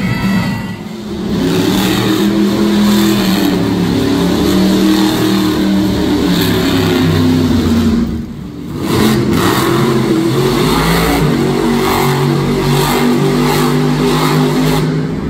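Monster truck engines revving hard as the trucks spin donuts on the arena dirt, the engine note rising and falling. A short dip comes about eight seconds in, then another truck revs on.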